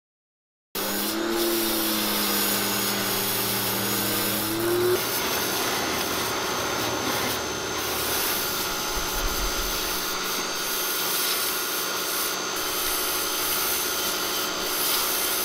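Portland 1750 PSI electric pressure washer running and spraying, a steady hiss of water jet over the motor and pump hum. It starts suddenly about a second in, with a wavering pump tone for the first few seconds before settling into the steady spray.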